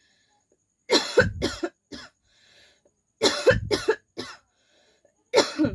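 A woman coughing in three fits about two seconds apart, each of two or three coughs, with a short cough or two between the fits.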